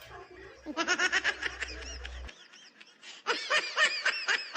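A person laughing: two runs of quick, rapid-fire giggles with a short pause between them.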